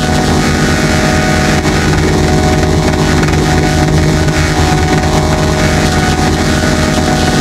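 Heavily distorted, digitally processed logo soundtrack: a loud, dense buzzing drone with many held tones over a fast, throbbing low pulse that sounds engine-like.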